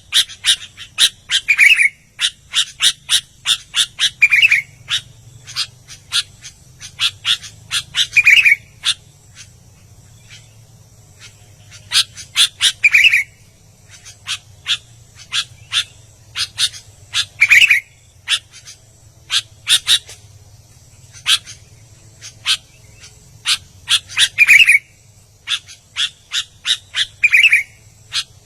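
Sooty-headed bulbul (kutilang) in full song: runs of sharp, rapid chirps broken by a short warbled phrase every few seconds, with a brief pause about ten seconds in.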